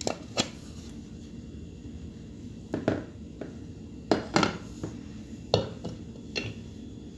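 Sharp metallic clacks as an aluminium pressure cooker lid is handled and knocked on a hard surface, with pliers set against it: about eight short knocks, mostly in pairs, the loudest about five and a half seconds in.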